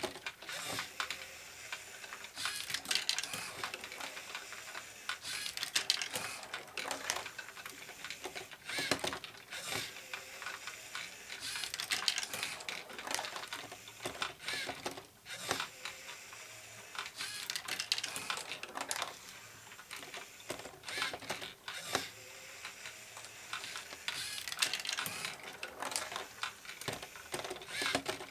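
LEGO Great Ball Contraption module running: a rapid, uneven clatter of plastic bricks and mechanism parts clicking and rattling, with small plastic balls knocking through it. The clatter swells and eases every few seconds as the mechanism cycles.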